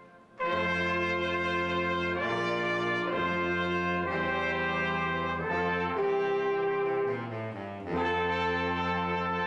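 A small brass and wind band, with tuba and saxophone among its instruments, playing held chords that change every second or two. There is a short break just after the start and a softer passage about seven seconds in.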